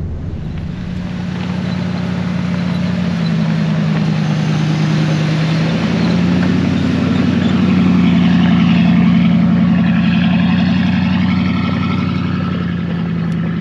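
Dodge RAM pickup's engine running steadily at crawling speed on a rough gravel track, its pitch dipping a little then rising again about halfway through as the throttle changes.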